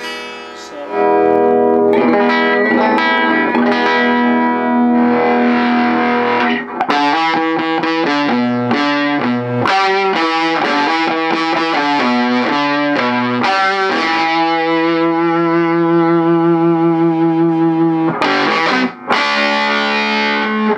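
Electric guitar played through a Mojotone 5F1 Champ, a tweed Fender Champ clone with a single 8-inch speaker, turned up into a gritty overdrive with no pedals. It opens with ringing held chords, moves to a run of quick riffing notes, then a long note shaken with vibrato, with a brief break near the end.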